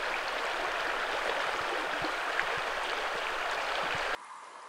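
River water flowing, a steady rushing hiss that cuts off suddenly near the end.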